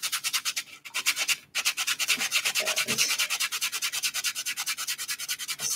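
Sanding block rubbed rapidly back and forth over a small wooden model-airplane propeller, in fast even strokes with a brief break about a second and a half in.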